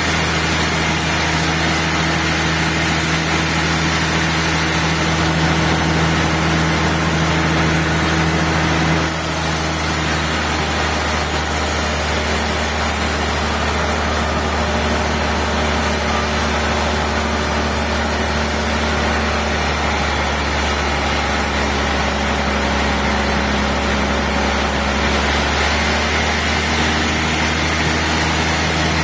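Sawmill machinery running steadily: an engine-like hum under a constant hiss, which changes in tone about nine seconds in and again near the end.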